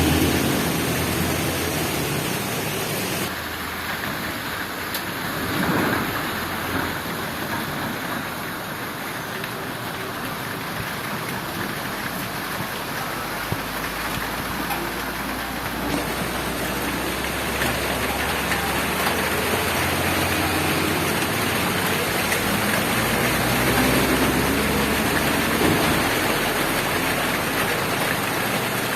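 Heavy rain falling steadily, with a low rumble rising underneath, briefly about six seconds in and for much of the second half.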